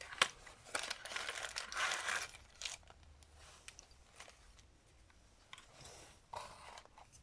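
Packaging of a carburetor rebuild kit crinkling and rustling as it is opened, mostly in the first three seconds, followed by scattered small clicks and taps as the parts are handled.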